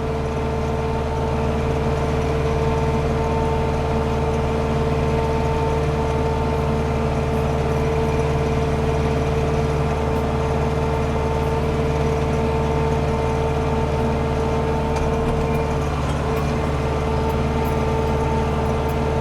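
Landini Blizzard 65 tractor's engine running steadily under load while driving a Taarup flail mower through roadside grass, with a steady whine throughout.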